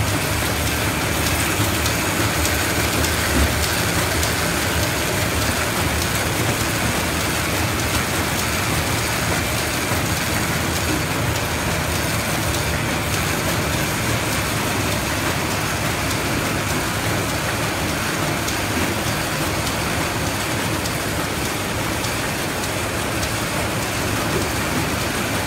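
ZD-F450 square-bottom paper bag machine running steadily at production speed: a continuous, even mechanical din.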